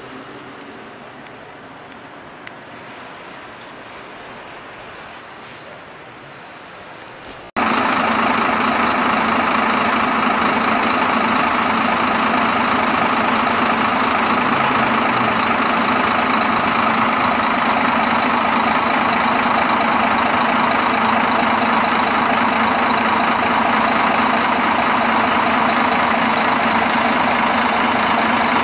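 Scania K420IB coach's 13-litre straight-six diesel idling steadily. For about the first seven seconds it is quieter, with a thin steady high whine over it. Then it jumps abruptly to a much louder, even idle that holds steady.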